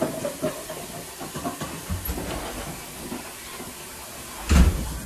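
Kitchen tap running water into a pot of uncooked rice, a steady hiss. A heavy thump about four and a half seconds in.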